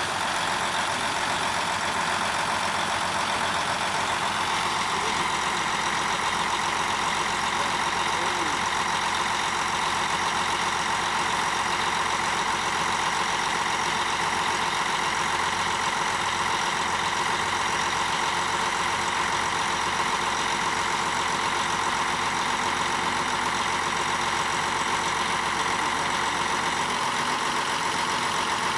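A pump truck's 600 HP John Deere diesel engine running at a steady speed, with a steady high whine over it. About four seconds in the whine grows stronger and then holds.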